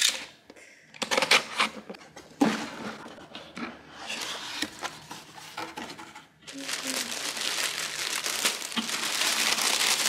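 Cardboard box being opened, with scraping and rustling of its flaps, then tissue paper crinkling steadily as it is pulled back from about six and a half seconds in, growing louder.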